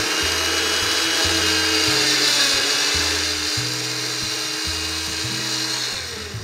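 Countertop blender running, chopping watermelon chunks into a chunky purée, its motor winding down near the end. Background music with a steady bass line plays underneath.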